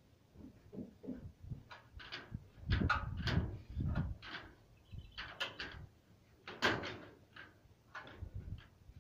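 Irregular scraping and knocking strokes as volcanic ash is scraped and swept off roof tiles, some strokes quick and light, a few louder ones about three and a half and seven seconds in.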